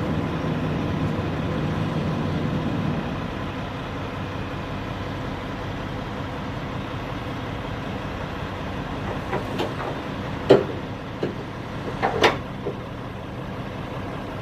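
Flatbed cargo straps being thrown over a load, with a few sharp knocks about ten and twelve seconds in as their ends land. Under it, a steady engine hum eases off after about three seconds.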